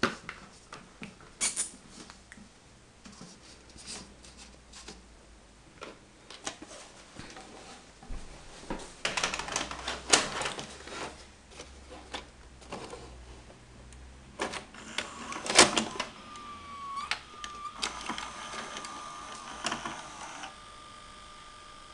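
Clicks, taps and clatter from handling small objects around an opened VHS video player, loudest in two bursts around the middle. Near the end a steady high whine sets in and holds.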